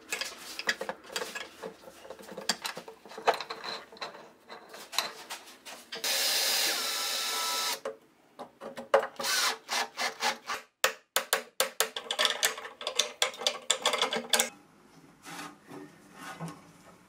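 Workbench tool sounds: irregular scraping and clicking from hand tools, then a DeWalt 18V cordless drill drilling into the saw's table for about two seconds, followed by a quick run of sharp clicks and knocks that dies down near the end.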